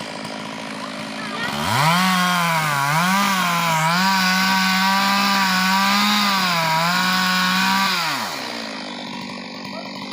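Two-stroke chainsaw revving up about a second and a half in and held at high revs while cutting into wood, bogging slightly twice under the load. It drops back toward idle near the end.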